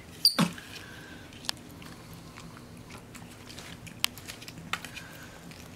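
Capuchin monkey eating strawberries: scattered sharp smacks and clicks of biting and chewing, the loudest a pair just under half a second in.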